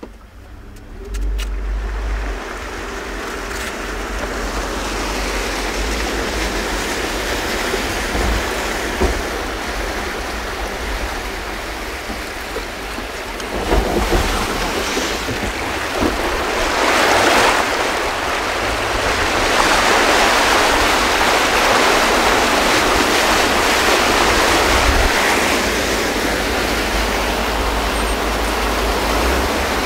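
Car driving through deep floodwater: a continuous rush of water splashing against the wheels and body, jumping up about a second in and swelling louder several times, over a low rumble.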